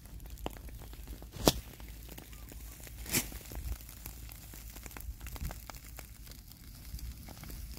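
Rice straw burning in rows on the field, with scattered small crackles and two sharp pops about a second and a half and three seconds in, over a low steady rumble.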